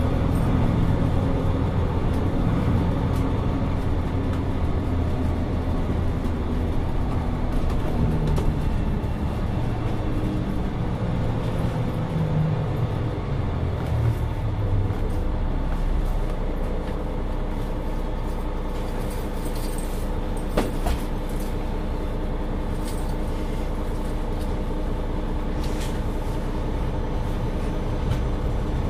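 Mercedes-Benz Citaro 2 city bus driving. The diesel engine's drone rises in pitch as the bus pulls away and accelerates, drops back once and rises again, then settles to a steady run. A couple of sharp knocks or rattles come in the second half.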